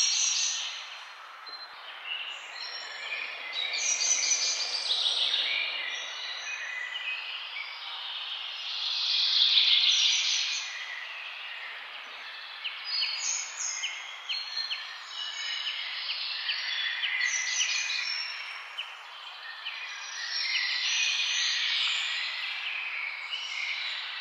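Several songbirds singing and calling over one another, with warbled phrases and quick trills, over steady background noise.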